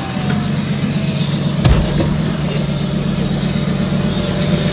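Off-road competition 4x4's engine running steadily at low revs as the truck crawls nose-first down into a trench, with a single sharp knock about a second and a half in.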